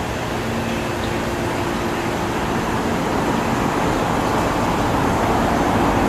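Steady background hum and hiss, with a few faint low steady tones, getting slightly louder over the last few seconds.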